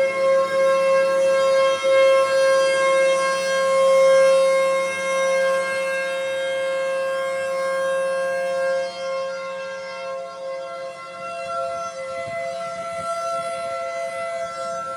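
Federal Signal Thunderbolt 1000B and Federal Signal 2001-130 tornado sirens sounding together at a steady, unchanging pitch. The sound is loud at first and grows a little fainter from about ten seconds in.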